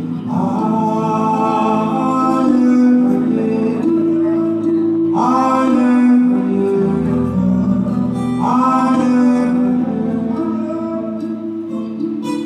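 Music led by guitar, with singing. New chords strike about half a second in, at about five seconds and again at about eight and a half seconds.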